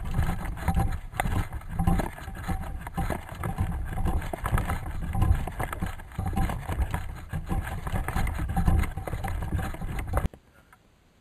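Wind buffeting and handling noise on a fast-moving camera's microphone: a heavy, gusty rumble with crackles and knocks that cuts off suddenly about ten seconds in.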